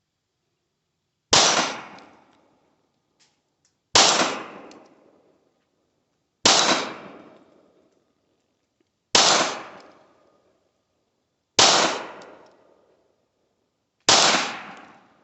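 Six slow, evenly spaced shots from a Canik TTI Combat 9mm pistol, about two and a half seconds apart, each with a short ringing tail. The pistol is cycling each round on a new recoil spring, running through the magazine without a stoppage.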